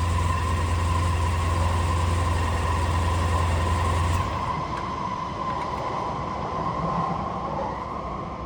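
Honda Silverwing 400 scooter's parallel-twin engine running steadily at idle after an oil and filter change. Its low rumble drops away about four seconds in, leaving a steady higher hum.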